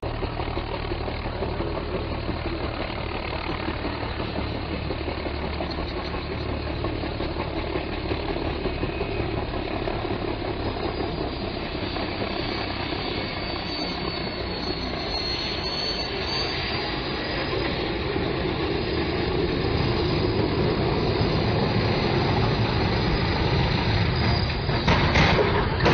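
Steady engine rumble mixed with noise, growing louder in the last third. A high whine dips and comes back up midway, and there is a short sharp sound near the end.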